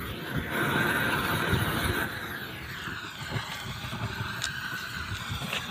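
Gas roofing torch burning with a steady rush as it heats the seam of a torch-on bitumen waterproofing membrane; the rush is louder for about the first two seconds.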